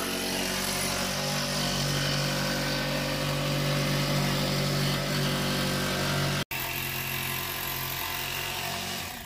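Ryobi cordless jigsaw running steadily as it cuts through a wood board. It drops out for an instant about six and a half seconds in, then runs on and dies away near the end.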